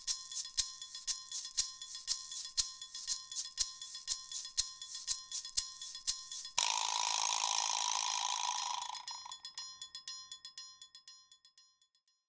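Closing music: a light jingling percussion beat, about three ticks a second, over steady high ringing tones. About halfway a hissing wash comes in, and the music fades out near the end.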